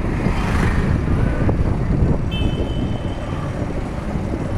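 Road traffic noise heard from a moving two-wheeler in city traffic: a steady, dense rumble of engines and tyres with wind on the microphone. A faint high tone sounds for about a second just past the middle.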